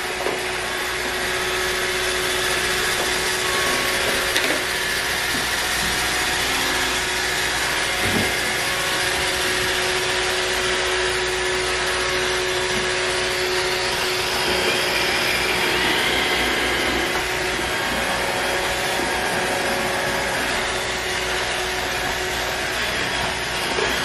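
iRobot Roomba 614 robot vacuum running: a steady whir from its vacuum motor and brushes as it drives across a granite countertop.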